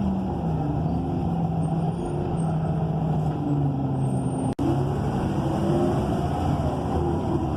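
A transit bus's Cummins Westport ISL G natural-gas engine and Allison automatic transmission heard from inside the cabin while under way; the engine note drops in pitch at first, holds, then climbs again after about five seconds. The sound cuts out for an instant about four and a half seconds in.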